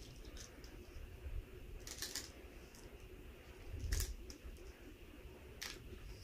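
Small plastic balls of a toy pool table clicking against each other and the plastic as they are handled: a few sharp clicks, a second or two apart.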